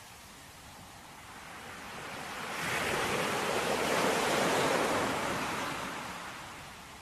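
Ocean waves on a shore: one wave swells up a couple of seconds in, peaks and washes away near the end.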